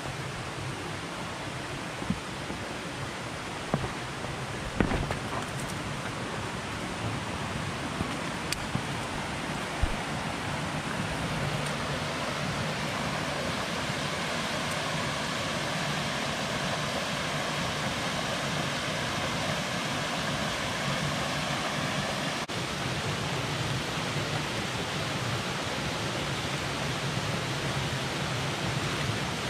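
Steady rush of water from a small creek cascade, growing a little louder about a third of the way through. A few sharp knocks in the first ten seconds or so.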